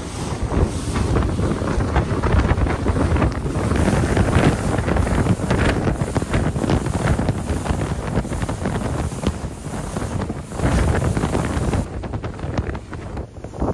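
Loud, gusty wind buffeting the microphone.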